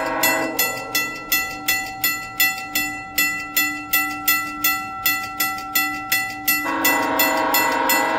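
Level-crossing warning bell ringing steadily, about two strikes a second. An approaching commuter train's horn sounds as a chord near the start and again louder from about seven seconds in.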